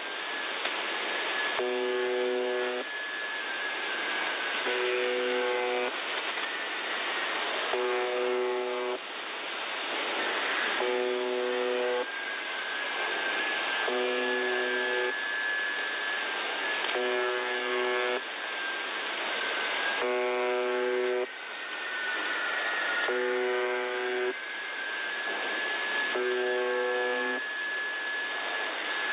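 The Buzzer (UVB-76) shortwave station on 4625 kHz heard through a receiver in upper sideband: a harsh buzz tone about a second long repeating roughly every two and a half seconds, over steady static hiss. A thin whistling tone drifts up and down in pitch underneath.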